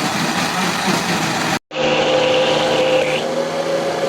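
Countertop blender motor running steadily as it blends a frozen-fruit smoothie, cutting out briefly about one and a half seconds in, then running on at a steady pitch.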